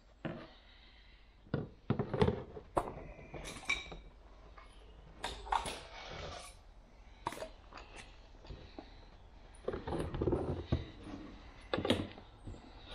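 Irregular clicks, knocks and taps of hands handling a hard plastic hook-up socket housing and a caulking gun, with no steady machine sound.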